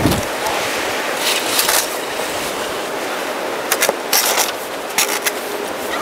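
Plastic snow shovel scraping and scooping deep snow: a few short scrapes about a second in and a cluster of them around four to five seconds, over a steady hiss.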